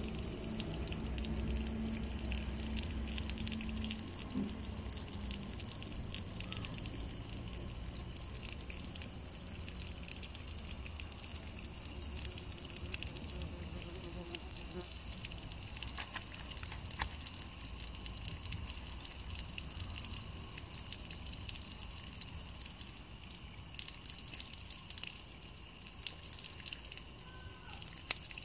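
Water dripping and trickling down a wet stone wall. A steady low hum runs through the first four seconds or so.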